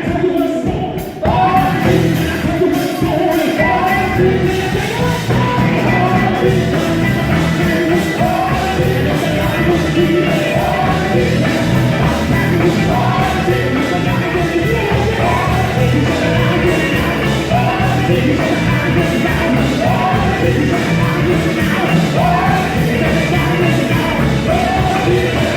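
Gospel quartet singing live with a full band backing, loud and steady, with a brief dip in level about a second in.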